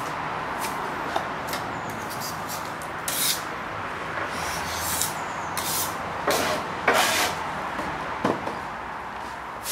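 Steady hum of workshop machinery, with a series of short scrapes and knocks of wood being handled as a wooden trestle is moved, the loudest about seven seconds in.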